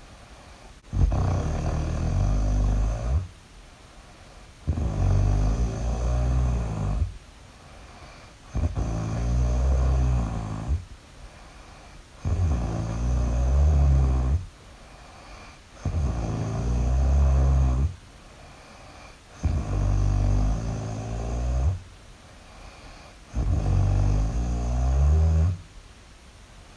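Really loud snoring, one long snore roughly every three and a half to four seconds, seven in all, with much quieter gaps between.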